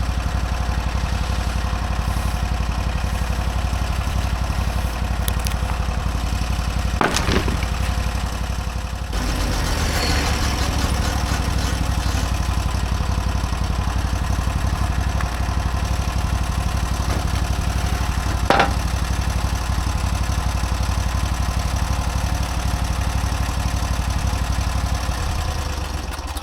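Portable bandsaw sawmill's gas engine running steadily, with two sharp knocks, and dying away at the very end.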